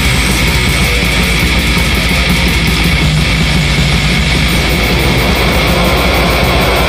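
Lo-fi death metal: heavily distorted guitars over fast, even drumming, loud and dense throughout, recorded on a phone with little mastering.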